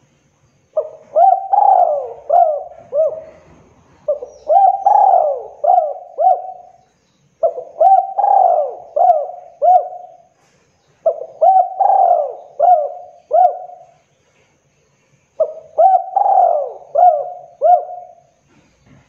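Spotted dove cooing: five repeated phrases of several notes each, a new phrase every three to four seconds.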